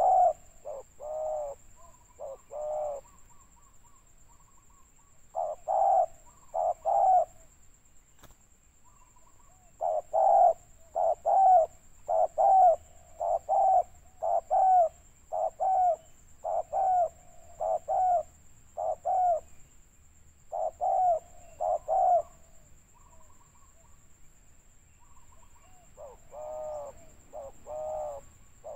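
Spotted doves cooing: repeated short phrases of two to four pitched coo notes, with pauses between phrases and a dense run of phrases in the middle. A faint high steady tone runs underneath, and a brief faint trill sounds in a few of the gaps.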